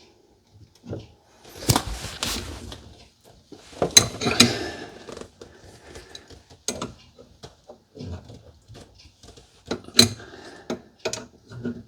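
Adjustable wrench clinking and knocking against the metal nut and fittings of a faucet supply line as it is tightened, with short scraping rattles between the knocks. The sharpest knocks come about 2, 4 and 10 seconds in.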